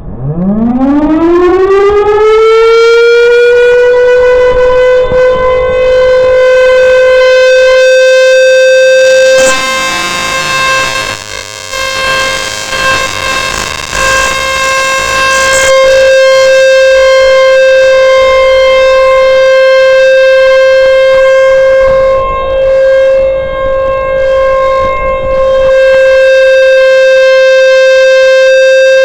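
Federal Signal Thunderbolt 1000 outdoor warning siren winding up from a low growl to a steady high tone within about three seconds, then holding its one-minute alert. The tone dips twice as the rotating horn turns away, and it is loud enough to overload the microphone.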